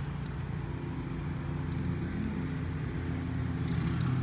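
A motor engine running with a steady low drone that grows a little louder towards the end, with a few faint clicks over it.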